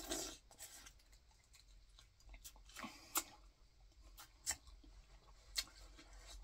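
Close-miked eating sounds from boiled crawfish: a short wet slurp at the start, then quiet chewing with a handful of scattered sharp clicks and smacks.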